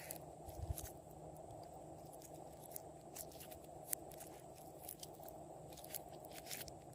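Slime being squeezed and kneaded by hand, giving faint, scattered sticky clicks and crackles over a steady low hum.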